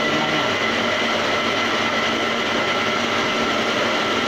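Homemade swinging tofu-straining machine running. Its small electric motor makes a steady hum with a constant whine as it drives the swinging sieve.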